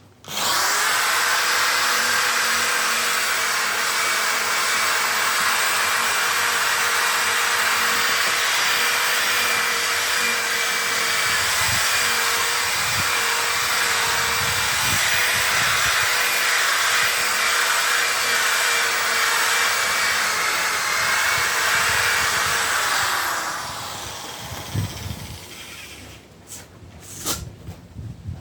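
Electric polisher running steadily with a light-cut polishing pad on a plastic headlight lens: a constant motor whine with hiss that starts about half a second in and spins down after about 23 seconds. A few knocks follow near the end.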